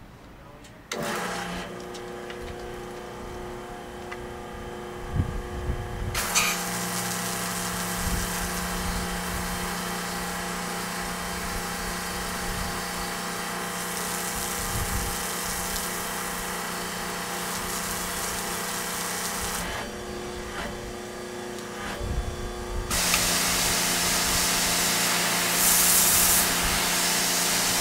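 Spray Master Technologies 600-PEW portable pressure washer starting about a second in, its motor and pump running with a steady hum. From about six seconds the wand sprays a hissing jet of water onto concrete. The spray stops for about three seconds near the three-quarter mark while the machine keeps running, then resumes, louder.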